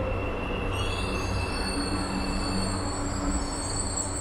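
Marmaray commuter electric train rolling slowly along the platform with a steady low rumble. Several high-pitched squealing tones from the running gear set in about a second in and hold on.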